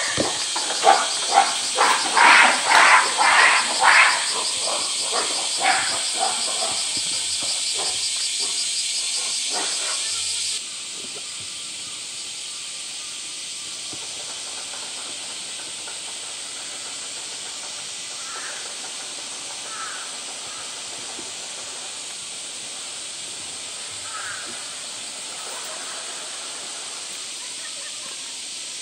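Western lowland gorilla screaming in anger, a quick run of loud calls in the first few seconds, over a steady high hiss. About ten seconds in the sound cuts off abruptly to a quieter steady hiss with a few faint crow caws.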